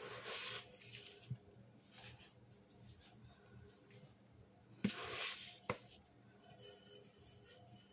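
Powdered cleanser poured from a plastic scoop onto a wet sponge in a tub of water: a short soft rush of falling powder at the start and again about five seconds in, followed each time by a sharp tap.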